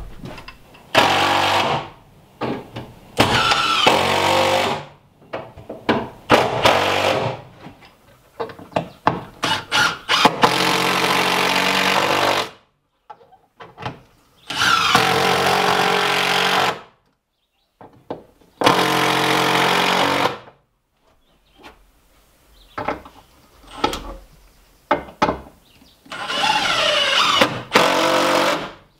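Cordless drill driving screws into wood, in about seven runs of one to two seconds each, its motor whine sliding up and down in pitch as it speeds up and slows, with short pauses between runs.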